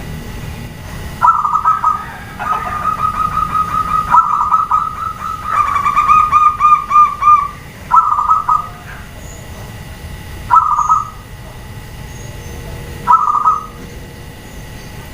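Zebra doves (perkutut) cooing: short bursts of rapid staccato notes, then a long run of notes in the middle where two birds overlap, followed by single short phrases repeated every two to three seconds.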